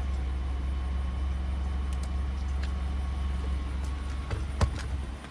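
A plastic mirror trim piece snaps into place with one sharp click about four and a half seconds in, after a smaller knock. A steady low vehicle-engine hum runs underneath.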